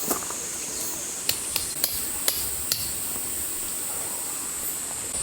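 A series of sharp knocks, about six in the first three seconds, over a steady high-pitched hiss.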